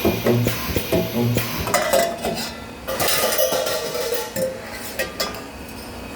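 Metal parts clinking and clattering as they are handled at a spot-welding station: a run of sharp clicks, then longer stretches of rattling metal.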